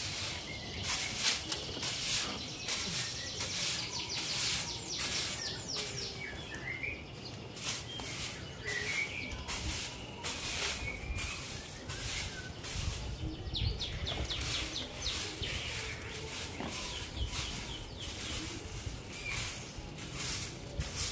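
Stiff stick broom sweeping concrete and paving in short, rapid scratchy strokes, about two a second.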